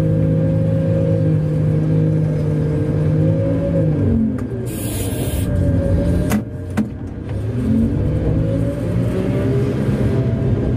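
Large diesel engine of a Komatsu HD785-7 haul truck running steadily, then dropping in speed about four seconds in. A short hiss of air and two sharp clunks follow near the middle, and the engine speeds up again toward the end.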